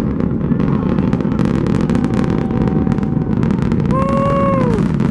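Rocket engines heard from the ground during launch: a loud, steady deep rumble laced with crackling. About four seconds in, a spectator lets out a long whoop.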